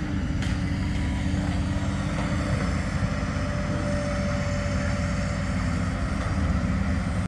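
Heavy diesel machinery running: the steady low drone of demolition excavator engines.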